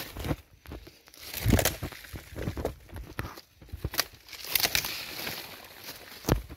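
Footsteps scrambling through dry fallen leaves, crunching and rustling irregularly, with heavy thumps about a second and a half in and again near the end.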